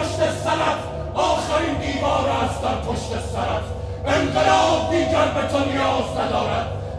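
A group of male voices chanting together in unison, in long phrases starting about a second in and again about four seconds in, over a steady low hum.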